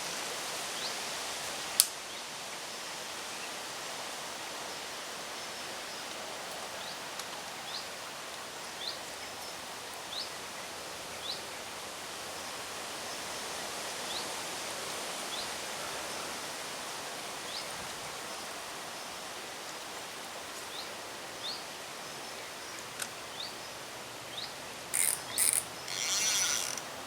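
Steady outdoor background noise with faint short rising chirps about once a second and a single sharp click about two seconds in. Near the end, a fishing reel is wound in short bursts as the 2-ounce lead is retrieved after feeling the lake bottom.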